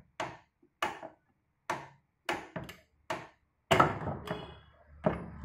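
Ratchet wrench clicking in short sharp strokes, about one every half second, as the centre nut of a scooter's CVT drive pulley is tightened by hand. About two-thirds of the way through comes a louder, longer metallic clunk and rattle.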